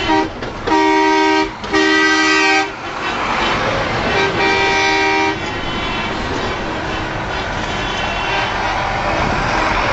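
Semi-truck horns blowing as trucks in a convoy pass close by: three blasts of about a second each, two back to back near the start and a third about four seconds in. A steady noise of big-truck engines and tyres going by follows.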